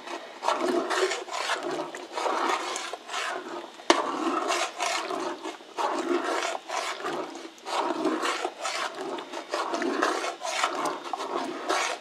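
Long steel spoon stirring a thick lentil and cracked-wheat paste in a large steel pot: repeated scraping, swishing strokes, about one or two a second, stirred continuously so lumps don't form. A sharp knock of the spoon against the pot about four seconds in.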